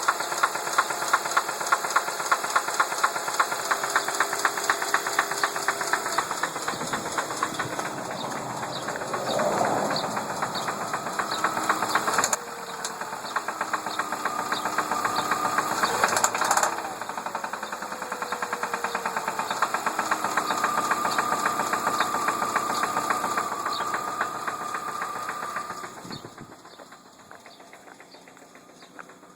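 2003 Ford Focus engine running with a fast, regular knocking rattle. The pitch shifts as the revs rise and fall a few times around the middle, and the sound goes quieter near the end. The cause of the knock is unknown to the owner.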